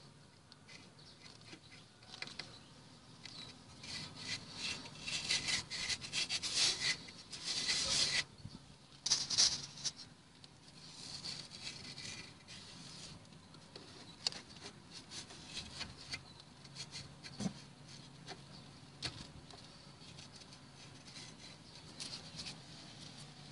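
Irregular rubbing and scraping of a hand and fingers against the dusty steel suspension arm of a VAZ-2101/2107, with a flurry of louder scrapes and clicks between about four and ten seconds in, then fainter scattered scrapes.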